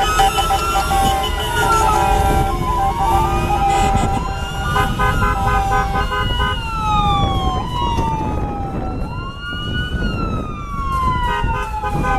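Several sirens wailing at once, their pitches sweeping up and down every couple of seconds and overlapping. Steady horn tones and a constant low rumble of street traffic run underneath.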